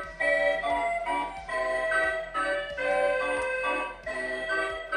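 Organ tune with notes changing several times a second, played by the animated Tumbling Clown Doll prop as it tumbles on its bar.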